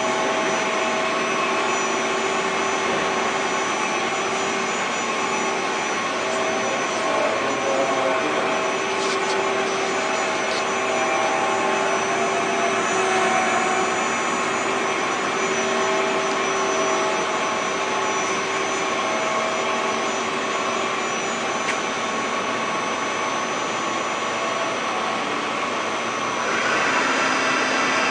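Youji YV1600 CNC vertical boring mill running a program: a steady mechanical whir with several held tones. Near the end the sound changes and grows a little louder.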